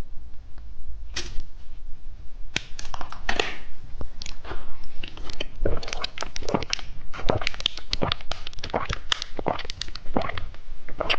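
Close-up crunching and chewing of candy: an irregular run of sharp cracks that starts about a second in and grows denser.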